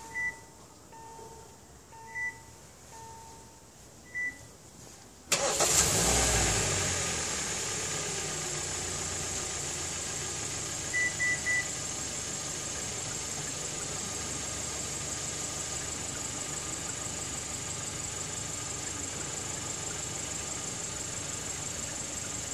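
Kia K7 (Cadenza) engine started by a remote starter: a few short beeps, then about five seconds in the engine cranks and catches and settles into a steady idle with a high, even whine. Three quick beeps sound about eleven seconds in.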